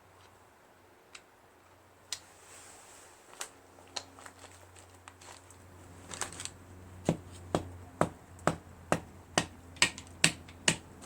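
Sharp metal taps on a socket used as a drift to push a piston's wrist pin through the piston and connecting rod. A few scattered clicks and knocks come first, then an even run of about nine harder taps, about two a second.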